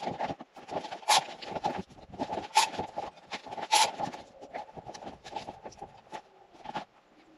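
Footsteps on snow-dusted foam insulated-concrete-form blocks, with three heavier steps about a second and a half apart and smaller scuffs and knocks between them.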